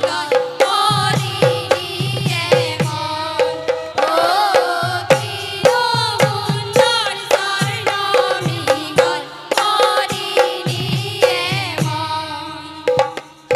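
A group of women singing an Assamese dihanam devotional song, with hand claps and a drum keeping a steady beat.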